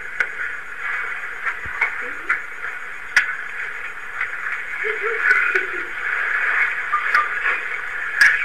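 A roomful of students talking and laughing in low voices, no single voice standing out, recorded thin through a phone, with a few sharp knocks.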